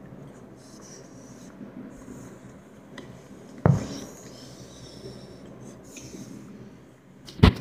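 Two dull low thumps, the second louder and about three and a half seconds after the first, over a faint steady hiss.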